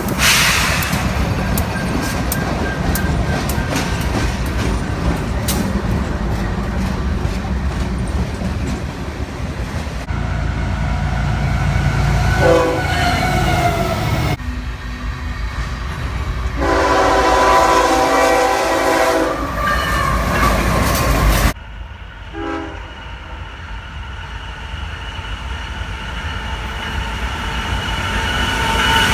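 Locomotive's Nathan K5HL five-chime air horn sounding several blasts over the rumble and wheel clatter of a moving train: a short blast, then a long one of about three seconds, then another short one.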